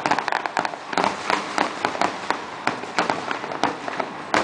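Aerial firework shells bursting in quick, irregular succession, several sharp bangs a second with no pause between them.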